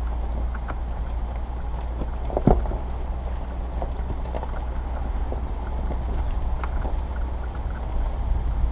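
Vehicle driving slowly over a rocky dirt track: a steady low rumble with scattered clicks and knocks as it rolls over stones. The loudest is a thump about two and a half seconds in.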